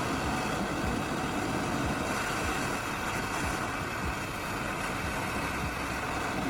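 Blowtorch flame burning steadily against a bolt in a vise, an even rushing noise that holds level throughout.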